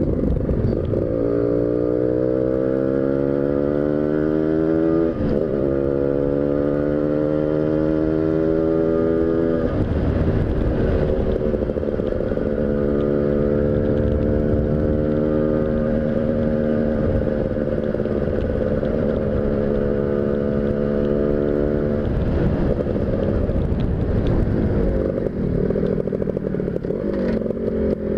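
Tuned motorcycle engine under hard acceleration: its pitch climbs, drops sharply at a gear change about five seconds in, and climbs again. It then holds a steady high pitch for about ten seconds before turning into rougher noise near the end.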